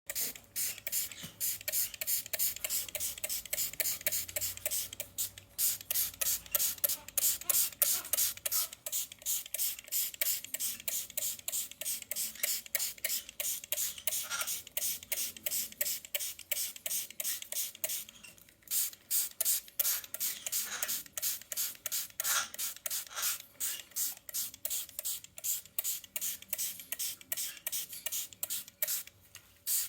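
Hand trigger spray bottle squirted over and over at about three sprays a second, misting pet parakeets to bathe them, with a short break about two-thirds of the way through.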